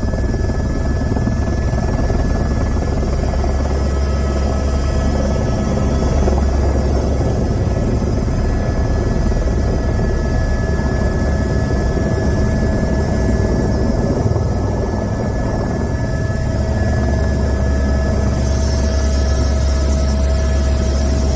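Steady, loud mechanical drone with a deep low rumble and a few constant whining tones, like an engine running without change; a brighter hiss joins near the end.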